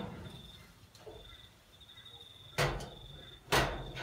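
Two heavy knocks about a second apart, each ringing briefly, as the pizza oven's metal door is handled and shut.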